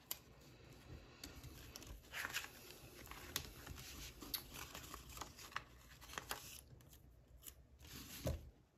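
Cash envelopes and a budget binder being handled: steady rustling of paper and plastic with several sharp clicks, ending in a soft thump near the end.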